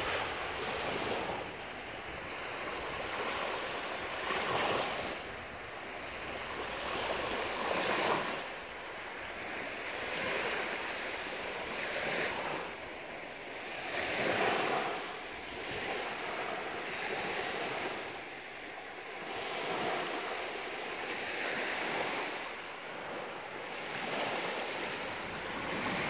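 Small sea waves breaking and washing up on a sandy beach, the surf swelling and falling back every few seconds.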